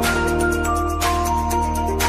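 Background music: held notes over a steady beat.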